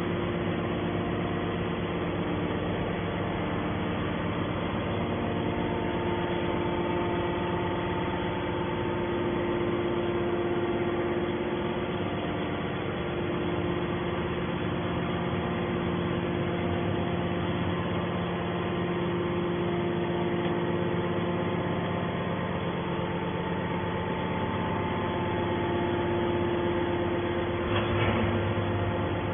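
Small hydraulic scrap metal baler's power unit running, a steady even hum with several held tones, with a brief burst of noise near the end.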